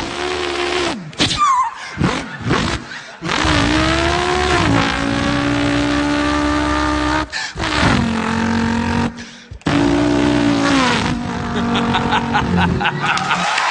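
A man vocally imitating a V8 car engine revving, its pitch gliding up and down and holding between sharp breaks, like a car accelerating through the gears.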